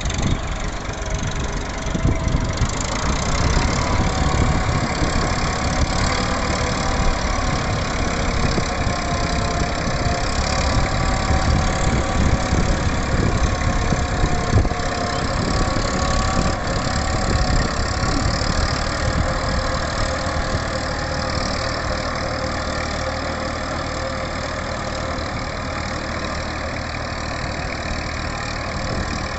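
Massey Ferguson 241 tractor's three-cylinder diesel engine running steadily, a little louder for the first two-thirds and then settling to an even idle near the end.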